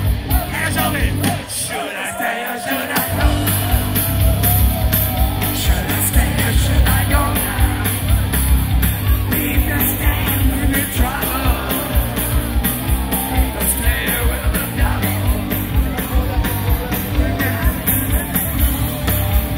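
Loud live rock band music with a strong, steady beat. The low end drops out briefly about two seconds in, then the full band comes back in.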